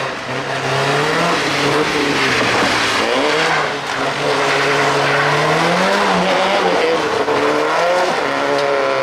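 Rally car engine at high revs, its pitch climbing and falling with throttle and gear changes, with a drop about three seconds in and again about six seconds in.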